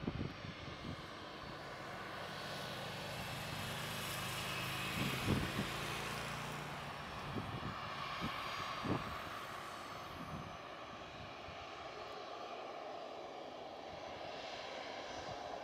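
Faint, distant jet airliner engines at the airport, a steady wash of noise that swells over the first few seconds and eases off after about ten, mixed with cars passing on the road nearby and a few short low thumps.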